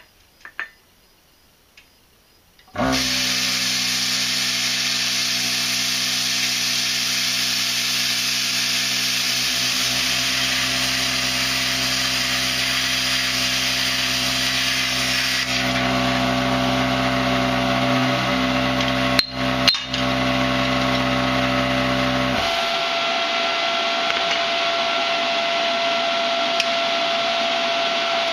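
Hobart Airforce plasma cutter cutting through a steel mower pulley: a loud, steady hiss with a humming drone starts about three seconds in. The low hum drops out about three-quarters of the way through, leaving a steady whine.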